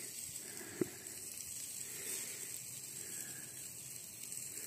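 Sausages and andouillettes sizzling faintly and steadily on a kettle barbecue grill, with a single short click about a second in.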